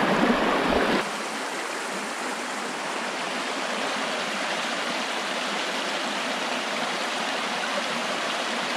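Big Spring's spring-fed outflow rushing and splashing over rocks into the river, a steady rush of water. About a second in it drops to a slightly quieter, even rush.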